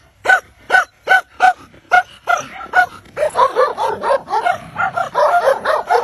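Collie-type dog barking in short, high, evenly spaced barks, about two and a half a second, which turn into faster, overlapping barks and yips about three seconds in.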